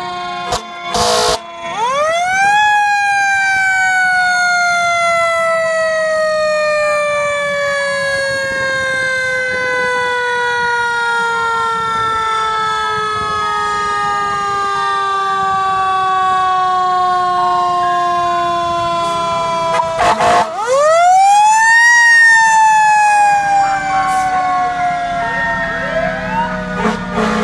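Fire engine siren wailing: it winds up quickly to a high pitch, then slowly winds down over many seconds, and is wound up again about two-thirds of the way through before falling once more.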